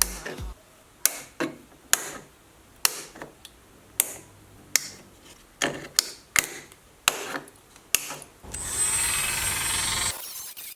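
Snippers cutting the protruding legs off hot staples melted into a plastic bumper: about a dozen sharp snips, one every half second to second. Near the end comes about a second and a half of steady whirring noise with a thin high whine.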